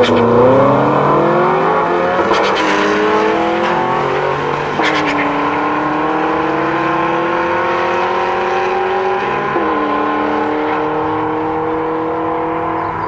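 Two drag-racing cars accelerating hard down the strip from the start line, engines climbing in pitch through each gear and dropping at the shifts about two, five and nine seconds in. The sound slowly fades as the cars pull away.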